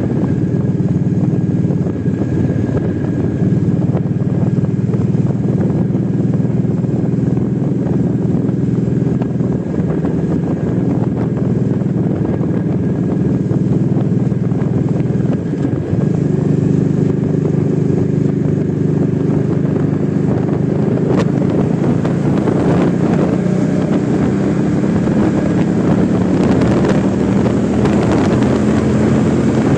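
Suzuki Intruder VL800's 45-degree V-twin engine running steadily at highway cruising speed, its note dipping briefly about halfway through, then slowly rising in pitch as the bike speeds up. Rushing air noise grows over the last third.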